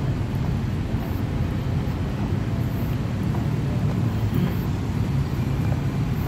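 Steady low rumble of outdoor street ambience: road traffic noise mixed with wind on the microphone.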